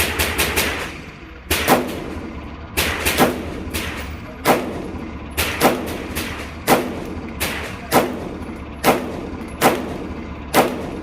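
Handgun gunfire, a string of single shots about one a second with some quick doubles and triples, including a Ruger P95DC 9mm pistol being fired. Each crack is followed by a short echo.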